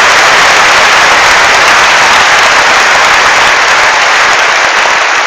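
Large audience applauding, a dense steady clapping that begins to die away near the end.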